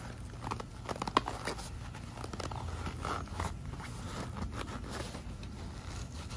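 Handling noise as a Gerber CrossRiver knife's hard plastic sheath is worked onto a life jacket's nylon fabric and webbing: scattered light clicks and scrapes of plastic against fabric, with rustling.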